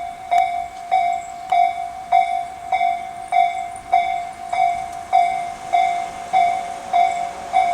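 Japanese railway level-crossing warning bell ringing in an even rhythm, a little under two strikes a second. It is the slow-tempo electronic tone of the Tobu Tojo Line type, sounding for an approaching train.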